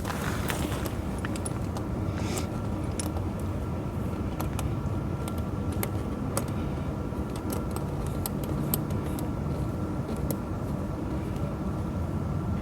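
Tractor tire chain links clinking and rattling in short metallic clicks as the chain is handled and fastened, over a steady low rumble.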